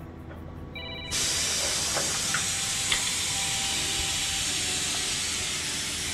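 Loud, steady hiss of compressed air venting from the lorry's air system, starting suddenly about a second in.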